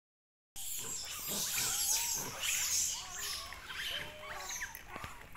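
Long-tailed macaques giving many short, squeaky calls that rise and fall in pitch, one after another, over a steady high hiss, starting about half a second in.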